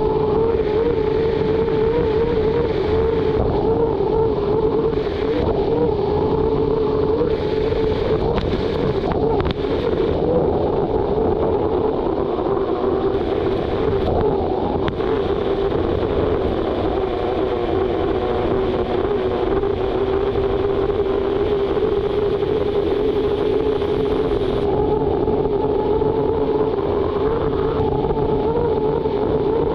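Unlimited hydroplane's Lycoming T55 gas-turbine engine running steadily at speed, heard onboard: a constant whine that wavers slightly in pitch over a heavy rush of wind and water.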